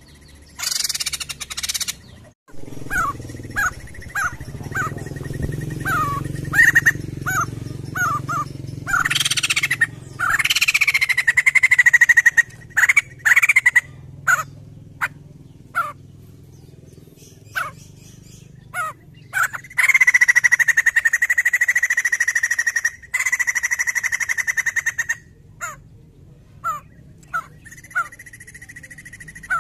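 White-crested laughingthrush calling: a run of short sharp chirps, broken by two long fast-pulsed calls held at one pitch, the first about a third of the way in and the second about two-thirds through.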